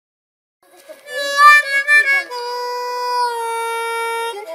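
Harmonica played with cupped hands: after a moment of silence, a few short notes about a second in, then one long held chord that bends down slightly near the end.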